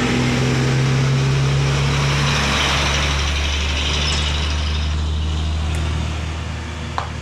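Diesel cargo truck driving past close by, its engine sounding a steady low drone that fades as it moves away near the end.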